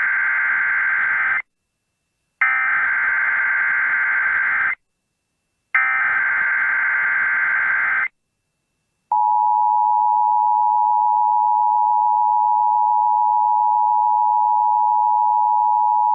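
NOAA Weather Radio Emergency Alert System signal: the end of one burst of the raspy SAME digital header and then two more, each about two and a half seconds long with a second's gap between them, followed about nine seconds in by the steady single-pitch 1050 Hz warning alert tone. The signal opens the broadcast of a Severe Thunderstorm Watch.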